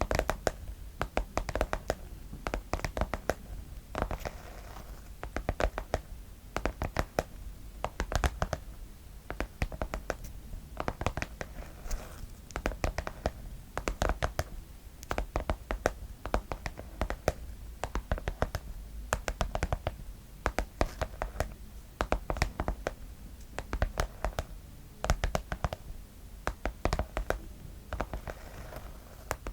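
Fingers tapping on a pencil case, a quick, irregular run of light taps.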